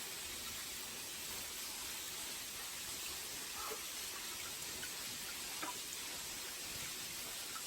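Water running steadily from the spout of a shrine's temizu purification basin, splashing into the water below, with a few small drips.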